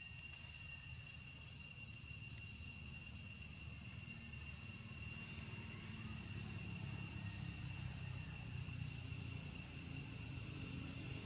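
Steady, unbroken high-pitched insect drone over a low background rumble that grows slightly louder in the second half.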